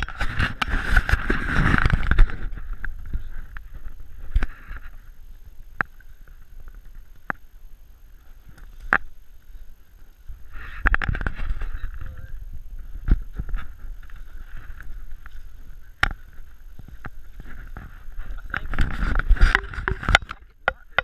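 Footsteps crunching and rustling through dry forest leaf litter, in three bursts, with scattered sharp clicks and knocks from the camera being handled.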